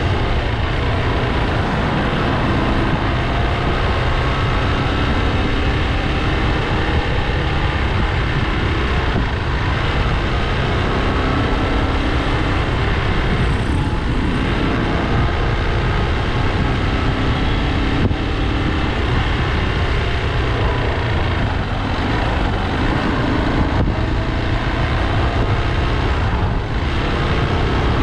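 Motorcycle engine running while riding in traffic, with a steady wind rumble over the camera's microphone.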